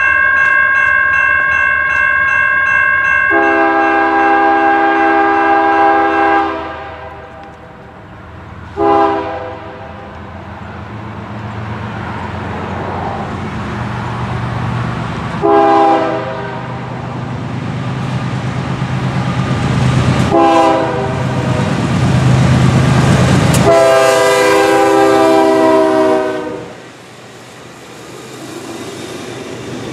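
Air horn of an approaching CSX freight train led by GE ES40DC diesel locomotives, sounding for a grade crossing: a long blast, three short blasts spread over the next fifteen seconds, then another long blast. Under the horn the rumble of the locomotives grows louder as they come close and pass near the end.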